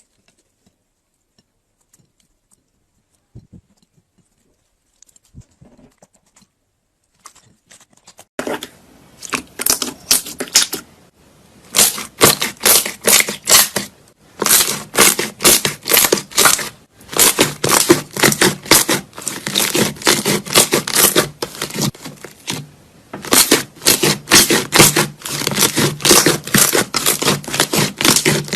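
Slime being squeezed and pressed by hand, giving off rapid crackling, popping clicks several times a second. It is nearly quiet at first; the crackling starts about eight seconds in and goes on in runs with short pauses.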